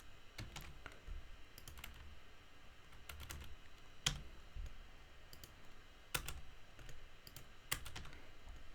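Faint, scattered keystrokes on a computer keyboard at uneven intervals, typing out a formula.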